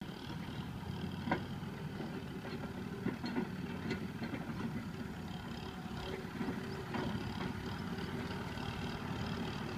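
Kubota tractor's diesel engine running steadily at low speed as the tractor drives over a rutted dirt track, with a few short knocks now and then.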